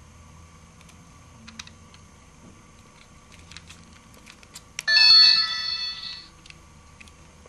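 Bandai Moonlight Stick toy wand playing a short electronic chime from its built-in speaker as its lights come on, starting suddenly about five seconds in and fading out after about a second and a half. Before it, a few light clicks of the plastic wand being handled.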